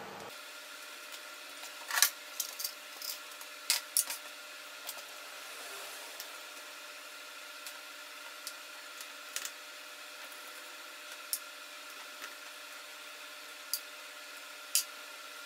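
Scattered small clicks and taps of a screwdriver and small metal and plastic laptop parts being handled while a MacBook Pro is taken apart. The loudest click comes about 2 seconds in, with a quick cluster soon after and single taps later, over a faint steady hum.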